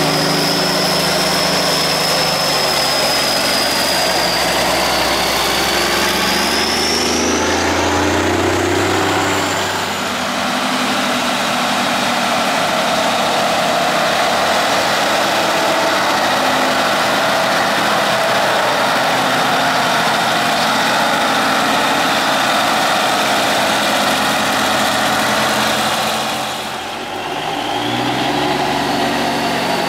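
Classic diesel semi-tractor engines running as the trucks drive slowly past one after another. A high whistle over the engine rises about seven seconds in, and the engine sound changes about ten seconds in and again near the end as a different truck passes.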